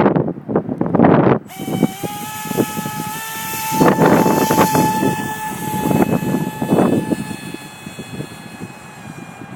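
Brushless electric motor and pusher propeller of an RC Funjet on 4S spinning up about a second and a half in, then holding a steady high whine that rises slightly in pitch and gets quieter near the end. Strong wind buffets the microphone throughout and is loudest in the first second and a half.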